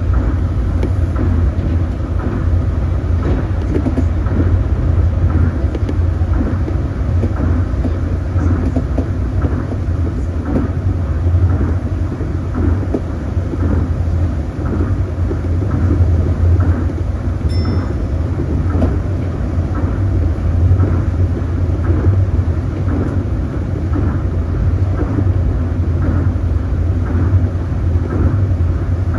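Tokyo Monorail train running at speed through a tunnel, heard from inside the front cab: a steady low drone of motors and rubber tyres on the concrete guideway beam, with faint regular clicks. A brief faint high beep sounds about halfway through.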